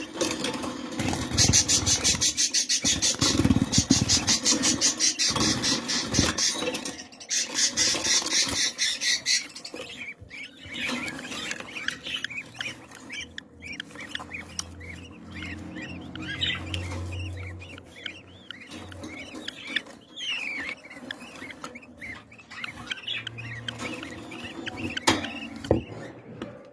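Budgerigar vocalising: a long run of fast, high ticking chatter, then a warbling stretch of scattered chirps and short falling whistles.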